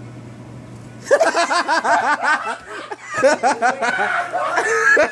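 Loud, high-pitched laughter that breaks out about a second in and goes on in rapid repeated bursts, over a steady low hum.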